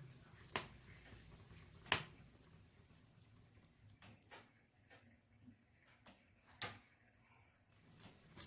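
Burning firewood crackling in a fireplace: a few sharp pops, the loudest about two seconds in and another near the end, with fainter snaps between.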